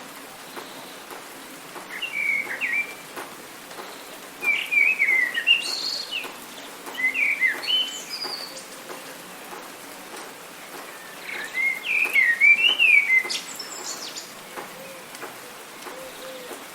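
Songbirds singing in short chirping phrases, in three bouts: around two seconds in, in the middle, and again near the end. Under them runs a steady hiss of rain.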